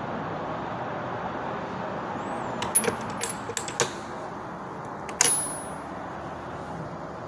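Metal hand tools clinking: a quick run of light clicks and clinks, then one sharper clank about five seconds in that rings briefly. A steady background hiss lies under it.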